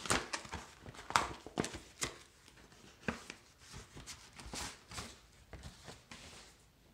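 Cardboard comic mailer being handled and torn open by hand: scattered rustles and knocks of paper and cardboard, with a short tearing sound about four seconds in.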